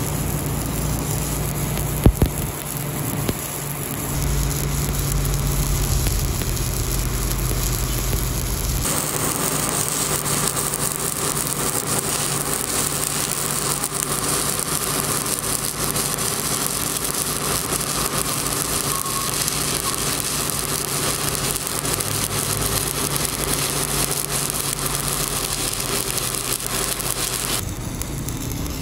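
Stick (shielded metal arc) welding arc crackling and sizzling steadily as the electrode burns along a weld joint in steel plate, with a couple of sharp pops about two seconds in; the arc stops near the end.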